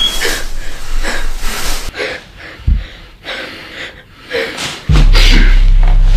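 A person breathing hard, with short breathy wheezes. About five seconds in, a loud, steady low rumble starts suddenly.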